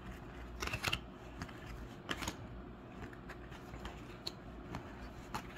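Topps baseball cards being flipped through by hand, each card slid off the stack and moved behind the others. The sound is a few quiet, separate rustles and light snaps of card stock a second or so apart.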